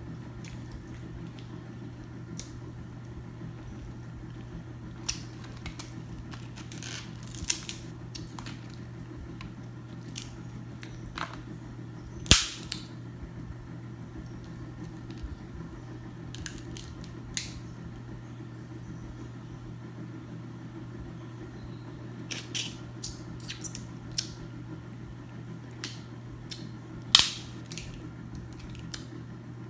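Snow crab leg shells cracking and snapping as they are broken apart by hand: scattered sharp cracks, the loudest about twelve seconds in and near the end, over a steady low hum.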